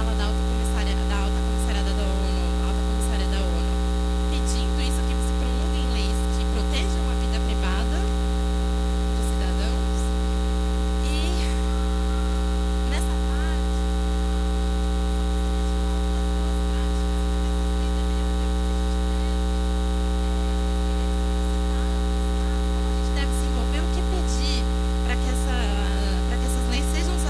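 Loud, steady electrical mains hum in the sound system's feed, with faint voices and scattered small clicks under it.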